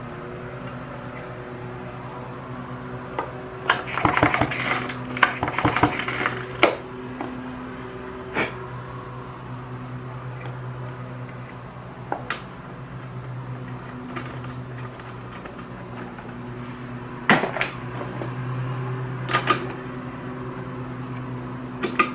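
Small metal clinks and taps of hand tools on a new spark plug as it is gapped and fitted: a quick flurry of clinking about four to six seconds in, then scattered single clicks. A steady low electrical hum runs underneath.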